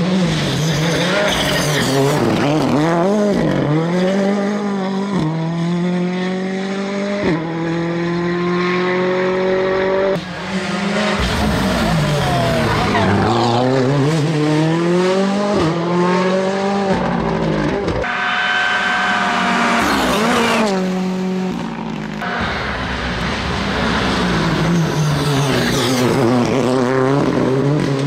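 Ford Fiesta R5 rally car's turbocharged four-cylinder engine driven flat out. Its pitch climbs through the revs and drops sharply at each upshift, then sweeps down as the car brakes and passes by, several times over.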